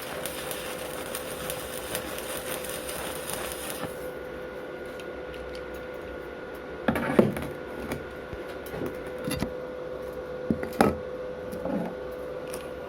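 Stick welding arc from a Wert SWI 190 inverter burning a 2.5 mm rutile electrode: a steady hiss and crackle that stops about four seconds in. A few sharp knocks follow later.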